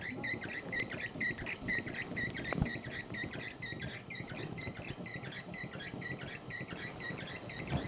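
Old hand-turned rice winnowing machine for blowing off chaff, being cranked, with a steady rhythm of short high squeaks, about four a second, as it turns.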